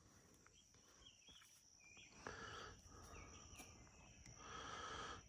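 Faint outdoor ambience: a few short bird chirps over a steady high insect drone.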